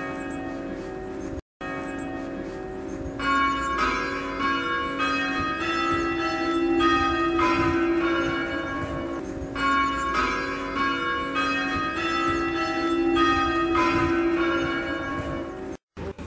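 Church bells ringing a run of struck notes one after another, the same sequence played twice over the lingering hum of earlier strokes.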